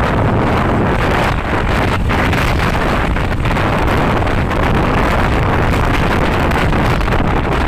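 Wind buffeting the microphone of a moving vehicle, over steady engine and road noise.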